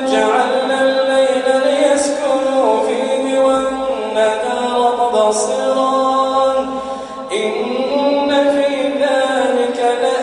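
A man's voice reciting the Quran in a melodic, chanted style, drawing out long held notes that glide between pitches. The phrase breaks off briefly about seven seconds in, and a new one begins.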